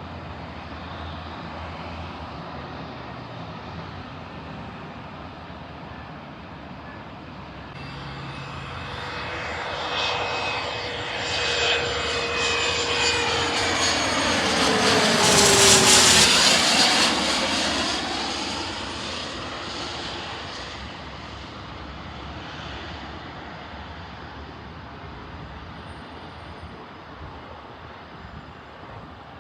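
Airplane passing low overhead, growing louder for several seconds, loudest about halfway through as its engine tones drop in pitch, then fading away.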